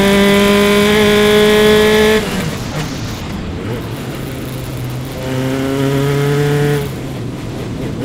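Single-seater race car's engine heard onboard, pulling hard at high revs with the pitch slowly climbing, then cut off sharply about two seconds in as the driver lifts for a corner. It runs lower and quieter through the corner, comes back on throttle about five seconds in, and drops off again near the end.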